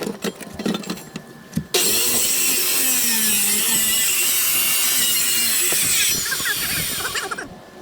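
A power saw cutting through a fiberglass-and-wood boat floor panel: it starts suddenly after a few handling knocks, cuts steadily for about four seconds and then trails off near the end.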